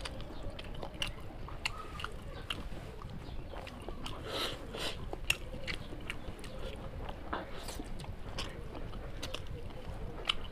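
A person chewing and biting through a curry-and-rice meal, with many scattered sharp clicks and smacks at irregular intervals.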